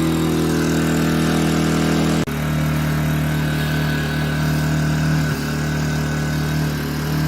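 Gentrax EC800i 800 W inverter generator engine running steadily while powering a 400 W fog machine. About two seconds in the sound breaks off for an instant, then the engine runs on at a slightly different pitch.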